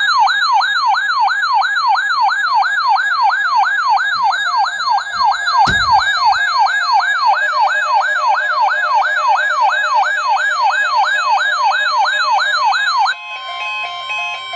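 Electronic siren sounding a fast yelp, about three falling sweeps a second, with one thump about six seconds in. Near the end the siren cuts off and gives way to steady electronic tones that step in pitch.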